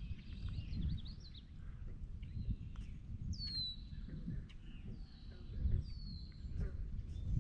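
Birds calling over a constant low rumble: a few clear whistled notes that slide downward in pitch, the strongest about three and a half seconds in and two more near the end, with scattered short chirps.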